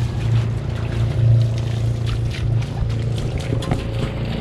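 A steady low motor hum with scattered faint knocks.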